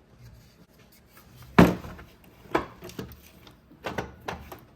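An alternator knocking against its mounting bracket as it is worked into place in the engine bay: one sharp clunk about a second and a half in, then several lighter knocks.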